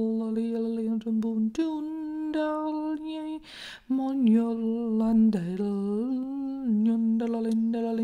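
A woman's solo voice chanting a wordless sacred song, holding long low notes with slow slides between them, with a breath taken about three and a half seconds in.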